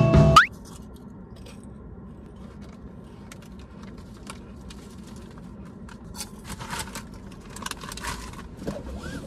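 A music cue cuts off about half a second in. It leaves the low steady hum of a car cabin, with scattered rustling and crunching from a bag of chips being snacked on, busier near the end.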